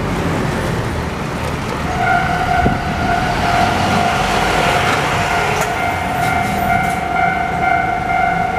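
Japanese railway level crossing's electronic warning alarm starting up about two seconds in and then ringing steadily over a rushing background noise. Its sounders differ in pitch and tempo, so the tones clash out of step with each other.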